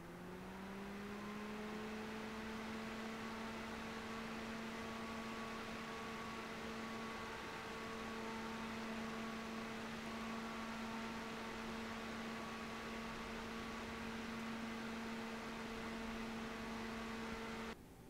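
Noctua NF-A12x15 slim 120mm PC fan rising in pitch as it comes up to speed in the first second. It then runs steadily: a rush of air with a steady low hum and a fainter higher hum above it. The sound cuts off suddenly just before the end.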